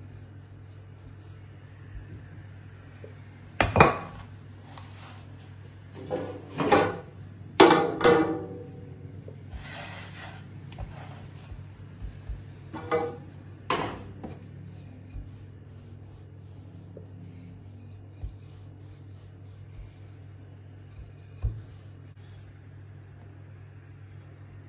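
Wooden rolling pin rolling and knocking on a floured round wooden board: a series of loud wooden rubs and knocks through the first half, then only a few light taps, over a steady low hum.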